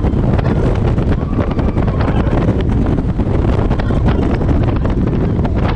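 Loud wind buffeting the microphone on a moving roller coaster, the Intamin hyper coaster Hyperion, with the train's low rumble and rattling clicks throughout.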